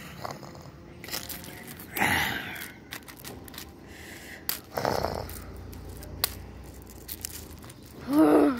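Plastic toy dinosaurs moved by hand over gravel, with a few short scraping and rustling noises and scattered clicks, then a brief wavering screech near the end.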